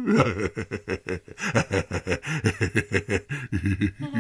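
A deep male voice laughing in a quick run of short, breathy snickers.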